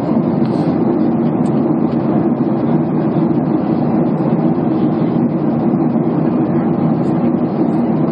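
Steady airplane cabin noise in flight: engine and airflow drone heard from inside the cabin, even and unbroken, low in pitch.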